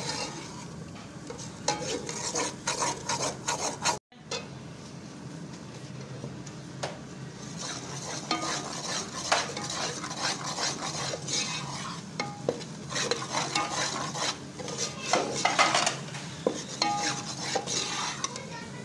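Metal spoon stirring and scraping gram flour roasting in oil in a steel pan, with repeated irregular scrapes and clinks against the pan.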